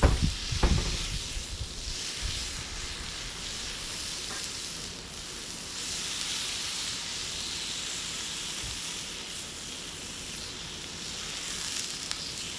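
Food sizzling steadily as it cooks on a hot surface, with a few low knocks in the first second.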